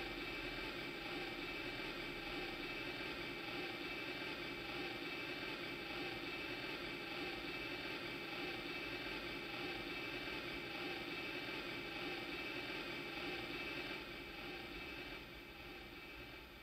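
Millennium Falcon toy's electronic engine sound effect playing from its built-in speaker: a steady, fluttering engine hum that drops in level about fourteen seconds in and fades toward the end.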